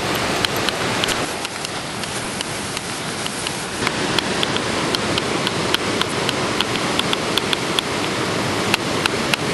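Loud, steady rushing noise with many small, sharp clicks scattered irregularly through it, more of them in the second half.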